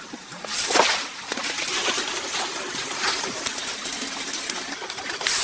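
Water splashing: a loud splash about half a second in, then steady splashing and running water, with another splash near the end.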